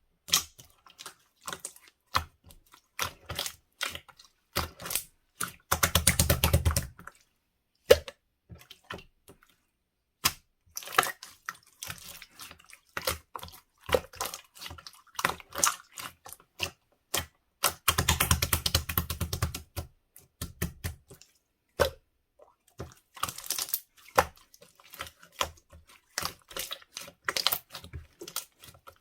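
Red translucent slime being squeezed, poked and stretched by hand, giving sticky, wet clicks and small air-bubble pops. Twice, about six seconds in and again near the middle, the clicks run together into a longer stretch of rapid crackling.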